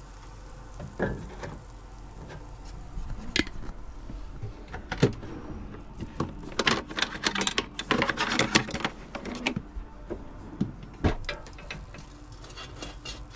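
Scattered clicks and knocks, then a run of rattling clatter from about six to nine and a half seconds in as a kitchen drawer of pans and utensils is rummaged through. Plastic tongs knock against the air fryer basket near the end.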